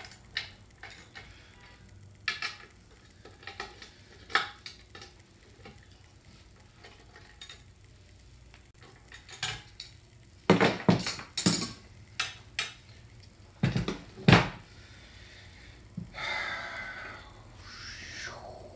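Metal parts and hand tools clinking and knocking against each other while a motor bracket is adjusted and tightened on a key machine. There are scattered light clicks, a few louder clanks about halfway through, and a short scraping stretch near the end.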